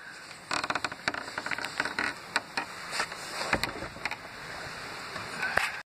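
Handling noise from a handheld camera being swung around: rustling with irregular clicks and knocks over a faint steady hiss, cutting off suddenly at the end.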